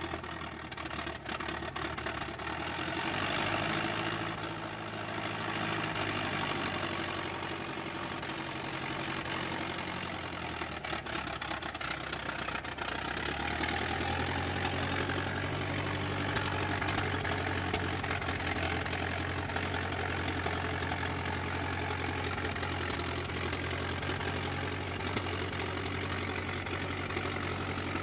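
Old car engine running, with swells in engine speed a few seconds in, then settling at about the halfway point into a steady idle.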